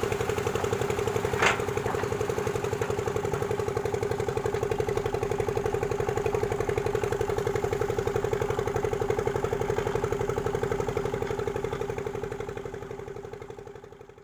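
Heavy diesel engine idling steadily with an even, rapid pulse, a short sharp clank about a second and a half in, then fading out near the end.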